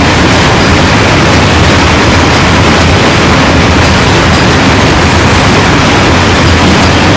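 Freight train rolling past close by: a loud, steady rumble and rattle of the cars on the rails, with no distinct rhythm.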